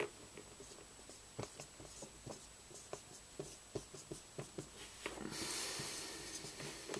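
Whiteboard marker writing on a whiteboard: short taps and scratches of the felt tip as letters are formed, with one longer drawn stroke a little past five seconds in.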